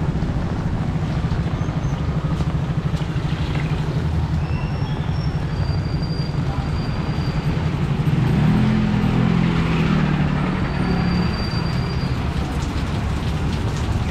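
A motor vehicle's engine running at low revs close by, a steady low pulsing drone that grows louder for a few seconds past the middle, over general street noise.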